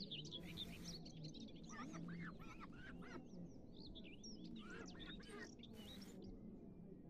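A busy chatter of birds: many quick, high chirps and twitters overlapping. There are two short hisses, one near the start and one about six seconds in.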